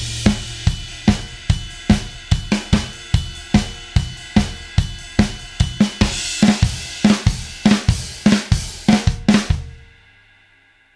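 Sampled acoustic drum kit from Toontrack's Stockholm SDX for Superior Drummer 3 playing a steady groove of kick, snare, hi-hats and cymbals, a little over two hits a second. The beat stops near the end and the cymbals and drums ring out.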